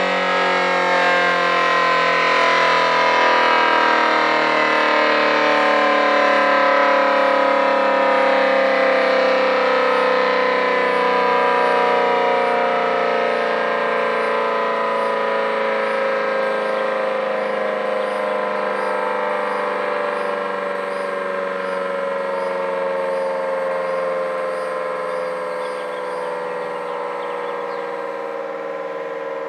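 Federal Signal Model 5T warning siren winding down, its chord from a 9/12-port chopper slowly sliding lower in pitch and fading as the rotor coasts. A light, even rattle from the siren housing runs under it and stops near the end.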